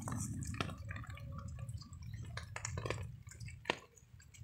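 Rainwater dripping in irregular sharp ticks, mixed with a cat eating rice from a metal bowl.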